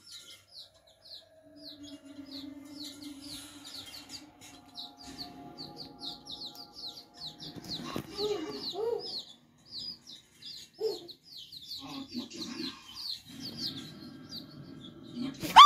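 Baby chicks peeping: a steady run of short, high, falling peeps, about two to three a second. A sudden loud sound cuts in at the very end.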